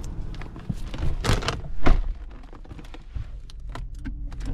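Thumps, knocks and rustling as someone climbs into a car's driver's seat, the loudest thunk, the car door shutting, about two seconds in.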